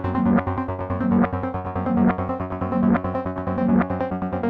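Live trance/techno played on a Korg Volca Keys synthesizer and Electribe Sampler: a repeating synth pattern over a regular pulse, swelling about once a second.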